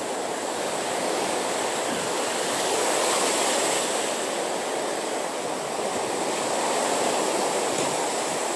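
Sea waves washing onto a beach: a steady rushing surf that swells about three seconds in and again near the end.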